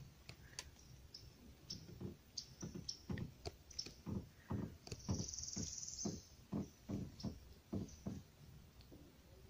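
Soft water plops and laps around a kayak hull, a quick uneven series of two or three a second, with small birds chirping high above them and a short high trill about halfway.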